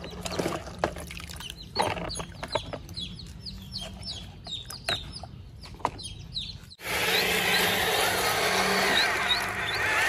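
Hard plastic toy parts clicking and knocking as they are handled, over chickens clucking and chirping in the background. About seven seconds in it cuts to a louder, steadier background noise, with the chirping going on.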